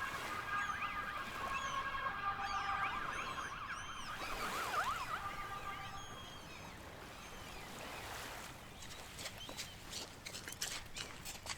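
Ambulance siren sound effect: steady tones breaking into a fast warble, dying away about six seconds in, with small birds chirping high above. From about eight seconds comes a run of sharp clicks and taps.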